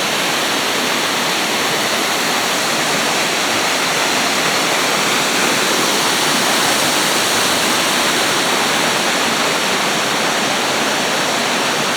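Creek waterfall in full flow after heavy rain, a loud, steady rush of falling water.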